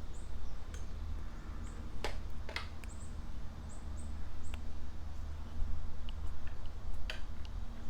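Small plastic and metal parts of a Corvette HVAC control panel being handled: scattered light clicks and taps, a few sharper ones, with several faint, very short high chirps.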